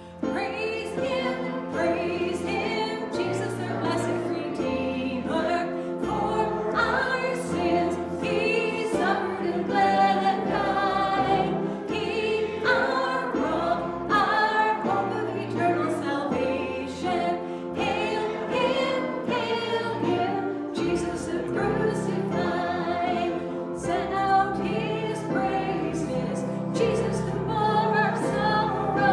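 Choir singing with instrumental accompaniment, held bass notes changing every second or two underneath.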